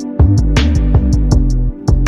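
Chill lo-fi background music: a steady drum-machine beat with hi-hat ticks and kick drums over deep bass and held chords.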